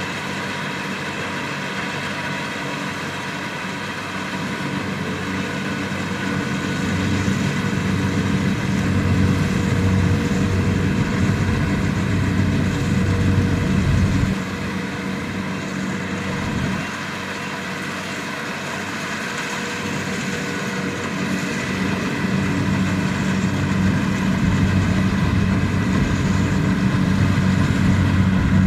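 Kubota DC-70 Plus combine harvester running, a steady diesel drone mixed with the whir of its machinery. The sound grows louder, drops suddenly about halfway, then builds again toward the end.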